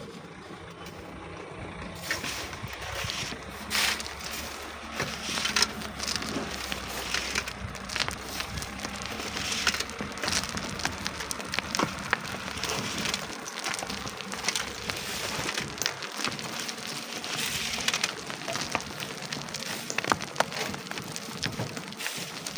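Irregular crunching, scraping and clattering of sand and stones being dug and moved, a dense run of small knocks that starts about two seconds in.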